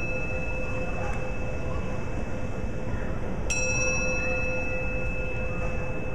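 A small brass singing bowl held in the palm and struck with a wooden striker, ringing with several clear, high overtones that fade slowly. The ring of an earlier strike is still dying away when the bowl is struck again about three and a half seconds in.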